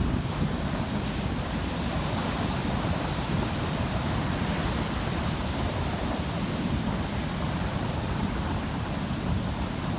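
Heavy surf from a rough sea breaking along a sand beach and against a rock breakwater: a steady rushing wash of waves with a deep low rumble.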